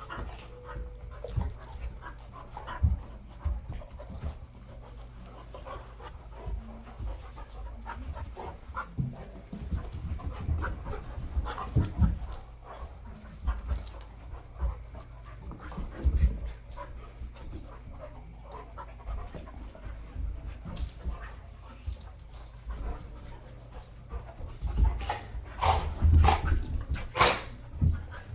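Dogs playing: panting, with irregular thumps and knocks from their scuffling, busiest near the end.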